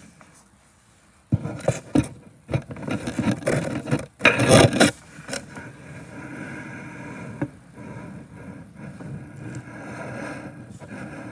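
Hands handling a book's printed pages close to the microphone: paper rubbing and scraping in uneven bursts starting about a second in, loudest around four seconds in, then a steadier rustling.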